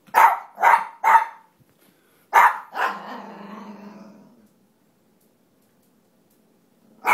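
Dog barking: three quick barks, then two more about a second later that trail into a low growl, and one more bark near the end.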